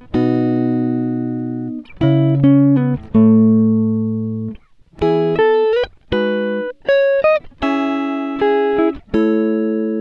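Background music: a guitar playing chords and short phrases, each chord ringing out and fading before the next one is struck.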